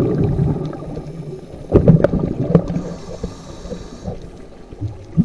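Scuba diver's exhaled air bubbles gurgling and rumbling underwater, heard through the camera's waterproof housing. Loud at first, then fading, with a short burst of bubbling about two seconds in and the rumble returning near the end.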